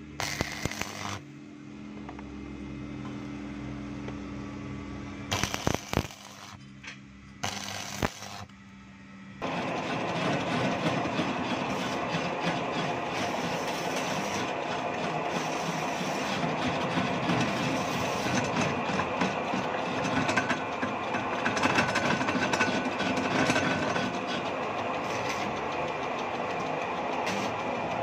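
Short bursts of stick arc-welding crackle on a steel propeller-shaft yoke over a steady hum. About nine seconds in this gives way to a metal lathe running, turning and cutting the shaft yoke with a dense, steady metallic machining noise.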